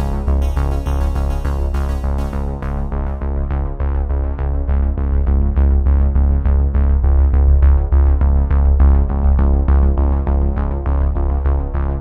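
Background music: an electronic synthesizer track with a heavy steady bass and a regular beat.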